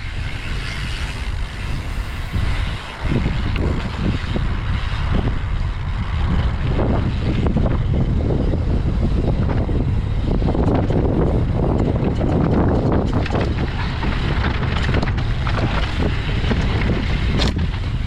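Wind buffeting the microphone over the continuous rumble and clatter of a YT Tues downhill mountain bike descending a rocky trail, with many short knocks and rattles as it rolls over rocks.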